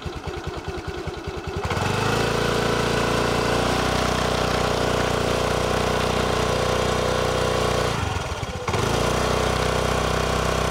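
Honda Activa 5G scooter's 110cc air-cooled four-stroke single-cylinder engine, heard at the exhaust. It idles with an even putter, is revved up about two seconds in and held at steady revs, then eases off briefly about three quarters of the way through before revving again. The exhaust note is smooth rather than bassy.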